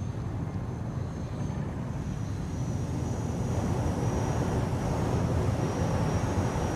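Aircraft noise: a steady rumbling drone that slowly grows louder, with a faint high whistle above it.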